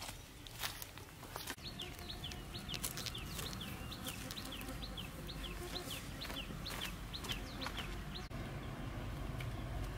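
A bird calling: a long run of short, high, falling notes, about three a second, stopping about eight seconds in. Two sharp clicks come just before it.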